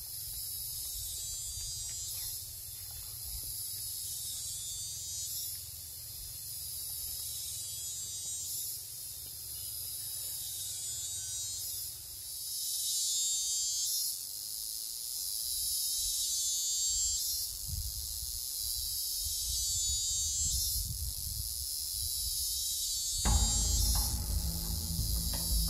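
Insects buzzing: a high, shrill chorus that swells and breaks off every second or two, over a low rumble. Music comes in near the end.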